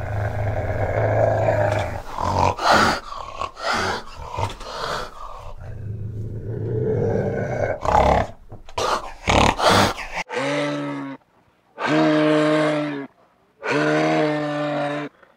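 A fishing cat growling low, broken by harsh breathy bursts, for about ten seconds. Then a moose gives three separate drawn-out calls, each about a second long.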